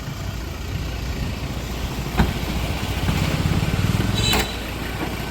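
Ford Endeavour diesel engine idling with a low, steady rumble; the engine was brought in for being too loud. A sharp click about two seconds in, and the engine sound grows louder for over a second before dropping back abruptly near the end.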